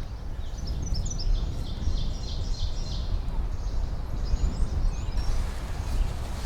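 Wind buffeting the microphone as a steady low rumble. A small songbird sings a quick run of high chirps over it in the first half, with a few more notes about four to five seconds in.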